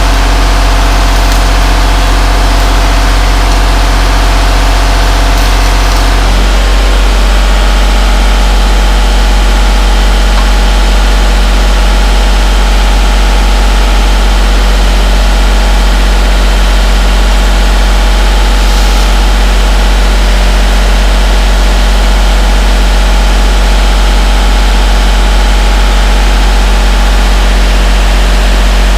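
Loud, steady engine or motor drone with a strong low hum. About six seconds in, some of the lower tones drop away and it runs on steadily at the new setting.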